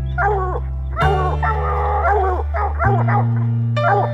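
Coonhounds barking treed: several arching, bawling barks, one drawn out about a second in, the chop and bawl hounds give when they have a raccoon up a tree. Music with sustained low bass notes plays underneath.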